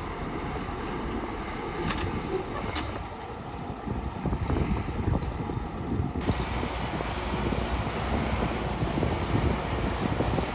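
Heavy construction machinery running steadily, with wind buffeting the microphone. Two sharp clicks come about two and three seconds in, and the sound suddenly turns brighter and hissier a little past the middle.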